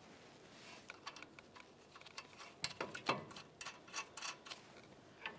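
Faint, irregular small metallic clicks and ticks as the upper ball joint nut is started by hand on its stud, with a pry bar bearing on the upper control arm. A couple of slightly louder clicks come about halfway through.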